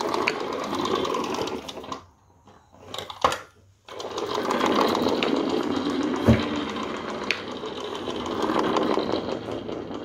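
Tiny live steam toy car running flat out across a wooden floor: its little steam engine makes a fast, buzzing chatter that swells and fades as it travels. The chatter drops almost out for a couple of seconds with one sharp click, then comes back, with a single knock a little past the middle.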